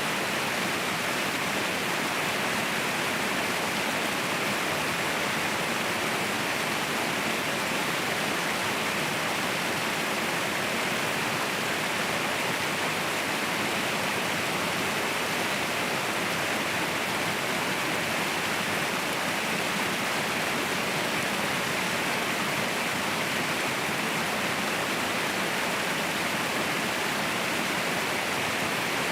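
Mountain waterfall rushing: a steady, even roar of falling water that does not change.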